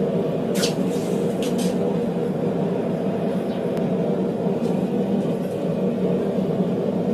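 Forge running with a steady, even drone while the steel heats inside it. A few light metallic clicks come about half a second and a second and a half in.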